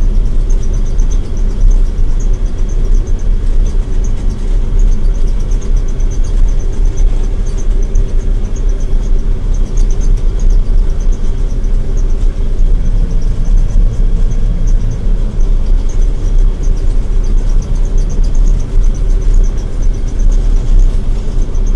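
John Deere 9700 combine running steadily while cutting wheat: a constant low rumble from the engine and threshing machinery, with a steady hum and a faint high whine over it.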